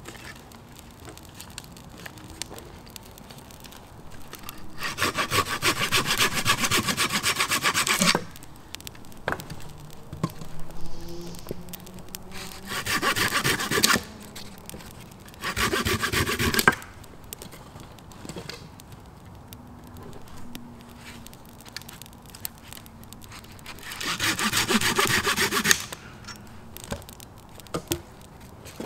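Hand saw cutting firewood in four bouts of quick back-and-forth strokes. The first bout is the longest, about three and a half seconds, and there are short pauses between bouts.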